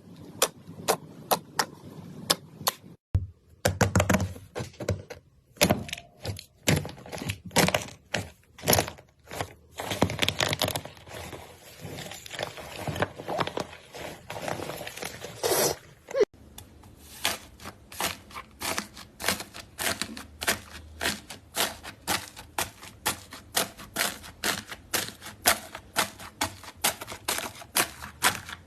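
Slime being pressed and poked by hand, giving a fast run of sharp clicks and pops, with clips cut together about three seconds in and again about sixteen seconds in.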